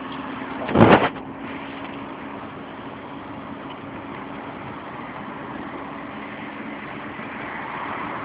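Steady running noise of a car heard from inside the cabin, with a low, even hum. A single loud thump about a second in.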